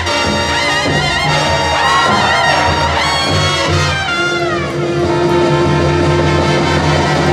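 Brassy jazz band music with trumpets and trombones playing sustained notes; a few seconds in, the horns slide down together in a falling glissando.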